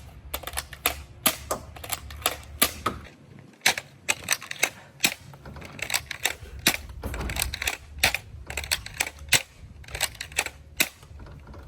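Nerf Elite Flipfury dart blaster being fired over and over: a quick, irregular series of sharp plastic clacks, two or three a second.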